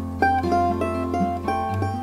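Instrumental tune with a mandolin picking a quick run of single melody notes over guitar accompaniment.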